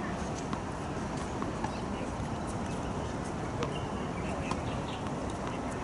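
A few faint, irregularly spaced knocks of tennis balls being struck and bounced on hard courts, over steady outdoor background noise.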